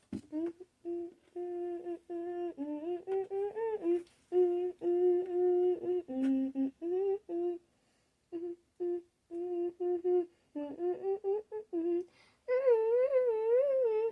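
A girl humming a tune to herself in short, steadily held notes with a few sliding steps, ending in a longer wavering note. A single click right at the start.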